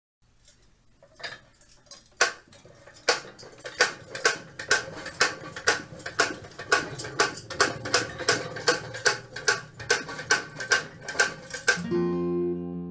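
An antique Planet Jr No. 4 hand seeder being pushed along, its wheel-driven mechanism giving sharp metallic clicks in a steady rhythm that grows louder and quicker, to about two and a half a second. Near the end the clicking stops and strummed acoustic guitar music begins.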